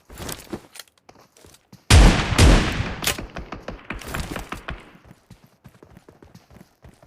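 Pistol firing: a few quieter cracks at the start, then two loud shots about half a second apart around two seconds in, followed by a couple more, each ringing out in a long echo.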